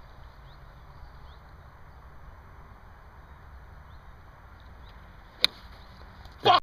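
A golf iron strikes a teed ball once, a single sharp click about five seconds in, over a steady outdoor background hiss. A louder, rougher burst of noise comes just after, right before the sound cuts off.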